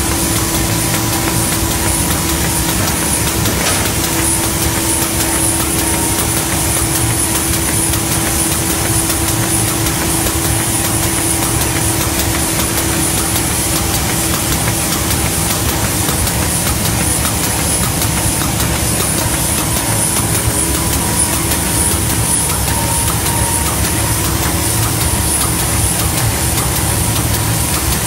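T-type baby diaper making machine running, its inverter-driven main motor turning gearboxes, shafts, timing belts and rollers: a steady, dense mechanical clatter with a constant hum and a thin high whine.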